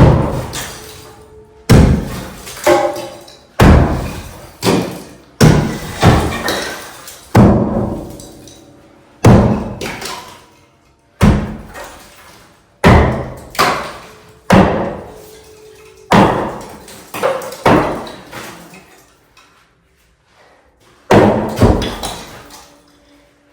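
Sledgehammer striking a heavy steel-reinforced cement structure, a dozen or so hard blows every one to two seconds, each fading with a short ring. A pause of a few seconds comes near the end before one more run of blows.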